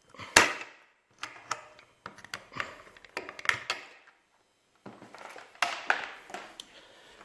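A run of sharp clicks and knocks from small hard objects being handled, the loudest about a third of a second in, with two short pauses.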